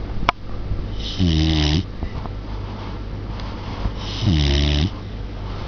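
Samoyed puppy snoring in its sleep: two snores about three seconds apart, each a short pitched breath with a hissy edge. A sharp click sounds just before the first.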